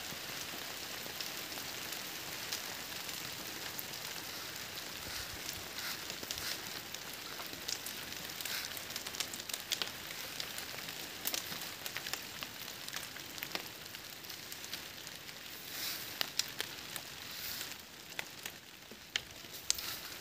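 Rain falling, a steady hiss with many sharp ticks of single drops; it eases a little near the end.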